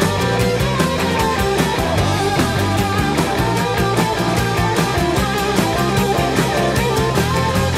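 Rock music with a fast, steady beat.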